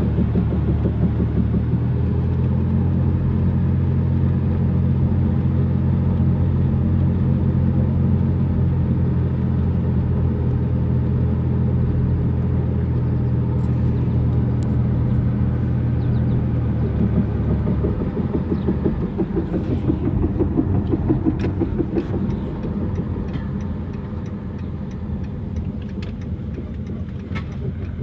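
Engine and drivetrain of a 1999 Dodge Grand Caravan with a failing transmission, running steadily for most of the time. After that the note turns unsteady and drops somewhat, then rises again near the end.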